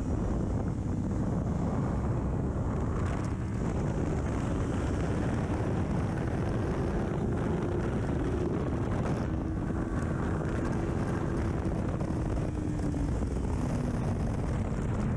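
Heavy wind noise over the microphone at speed, with the Kawasaki Ninja 400's parallel-twin engine, fitted with a full aftermarket exhaust, holding a steady high note that climbs slowly and then drops away near the end as the revs come down.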